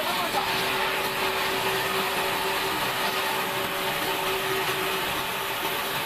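Sawmill band saw running and ripping lengthwise through an old pine beam: a steady, even cutting noise with a constant hum.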